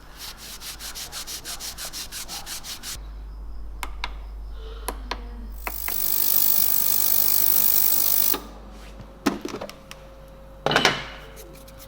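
Rapid back-and-forth rubbing, about seven strokes a second, for the first three seconds. A few clicks follow, then a loud steady hiss of about two and a half seconds, then scattered knocks.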